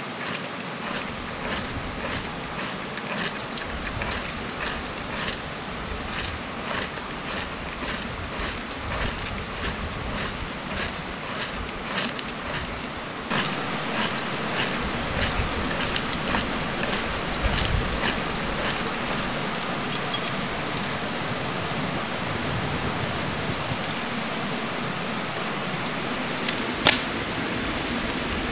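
Sharp clicks or taps, about one or two a second, over a steady rushing background. Midway a bird sings a run of quick falling chirps that speeds up.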